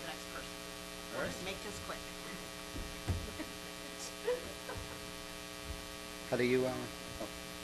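Steady electrical mains hum in the sound system, with a few faint knocks and a brief voice about two-thirds of the way through.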